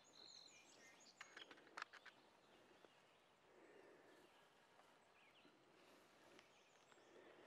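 Near silence, with faint bird chirps in the first second and a few faint clicks between one and two seconds in.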